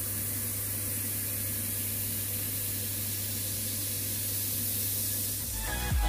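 HD-130 airbrush spraying paint onto paper: a steady hiss of air and paint mist, with a steady low hum underneath. Beat-driven music comes in near the end.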